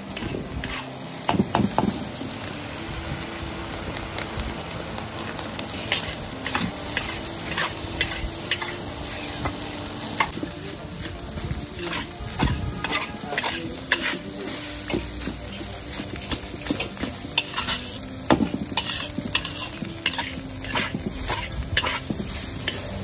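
Egg fried rice sizzling in a large wok while a metal spatula keeps scraping and turning it, with frequent irregular clanks of the spatula against the wok. The rice is being stir-fried until the grains are loose and separate.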